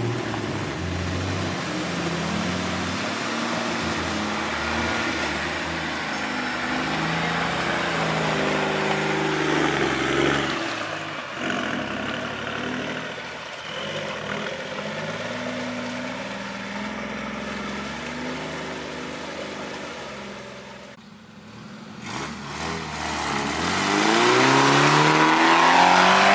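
Off-road 4x4's engine revving up and down again and again under load, with a short break about 21 seconds in and a louder, climbing rev near the end.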